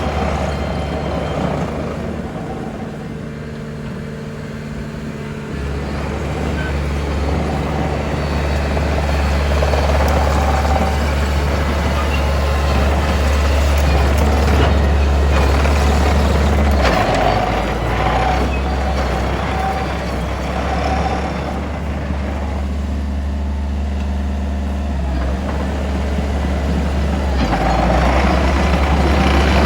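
Diesel engine of a Mitsubishi BD2J2 swamp bulldozer running, its note shifting to a new speed several times as the machine is put through its operation check, with louder stretches of mechanical clatter from the working machine.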